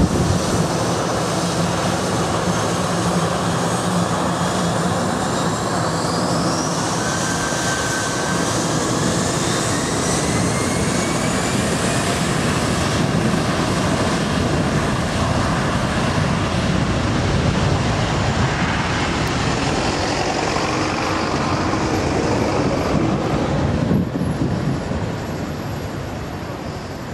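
Airbus A321 twin jet engines spooling up to takeoff power: a rising whine over a heavy, steady roar. The roar holds for the takeoff run and starts to fade near the end as the jet moves away.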